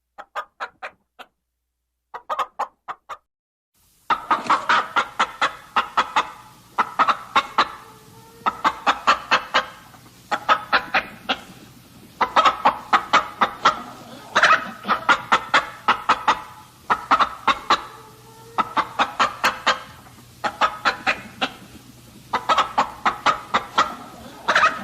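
Hens clucking in quick runs of short clucks, with a new run every second or two. In the first few seconds there is silence between the runs; from about four seconds in, the clucking goes on over a steady low background hum.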